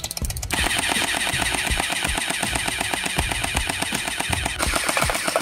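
Electric P90-style gel blaster firing full-auto in sustained bursts: a rapid, even rattle of shots.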